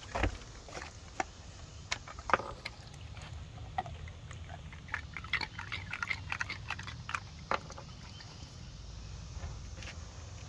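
A dog crunching ice cubes in its jaws: scattered sharp cracks, with a quick run of crunches in the middle.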